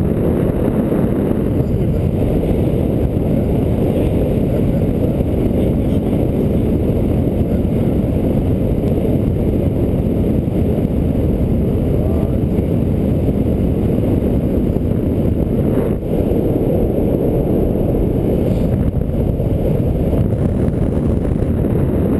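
Wind from a paraglider's flight rushing over the camera microphone: a steady, loud, low rumbling rush that barely changes.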